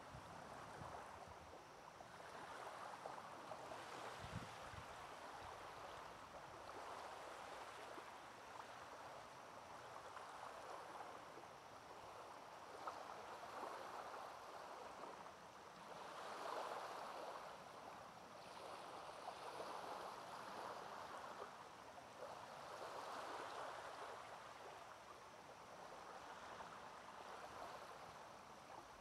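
Small waves lapping faintly on a pebbly shore of calm water, each soft wash swelling and fading every few seconds.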